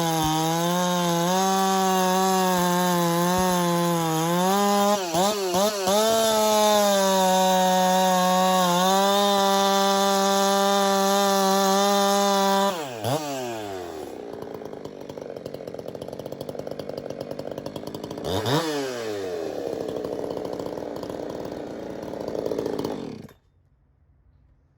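Ported Husqvarna 372 X-Torque two-stroke chainsaw with a dual-port muffler, running flat out through knotty fir for about thirteen seconds, its pitch sagging and wavering under the load of the cut. The throttle is then released and the engine falls to a low idle. It is revved once more a few seconds later and then shut off shortly before the end.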